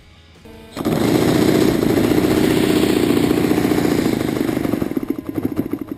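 Four-stroke nitro (glow) model-airplane engine starting and running loudly and steadily from about a second in, then slowing near the end into separate, evenly spaced firing beats. It has started backwards, turning the propeller the wrong way.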